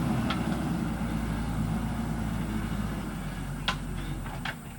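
JCB 3DX backhoe loader's diesel engine running steadily, with a few short sharp knocks, two of them near the end.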